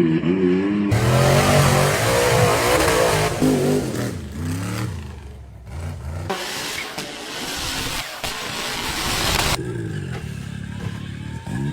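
Off-road 4x4 truck engine revving hard, its pitch rising and falling, under a loud rushing noise. The sound changes abruptly about a second in and again near the end.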